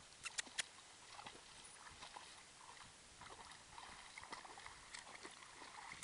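Faint splashing and sloshing of a young Great Dane wading in shallow pond water and biting at it, with a few sharp clicks about half a second in.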